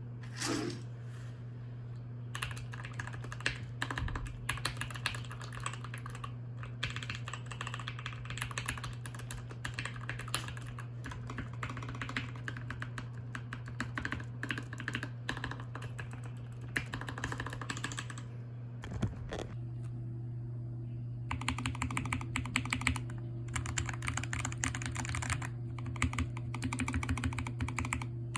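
Modded Skyloong GK61 60% mechanical keyboard being typed on, a dense run of rapid keystroke clacks. There is a brief pause about two-thirds of the way through, then fast typing resumes. A steady low hum runs underneath.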